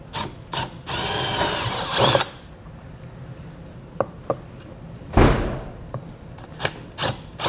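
Cordless drill boring a hole through a plastic bumper trim panel, running for about a second with a whine that rises and falls in pitch. Then scattered clicks and knocks as the panel and drill are handled, with a dull thump about five seconds in.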